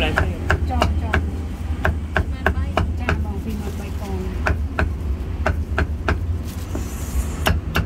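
Cleaver chopping roast duck and pork on a round chopping block: sharp, irregular chops about two a second.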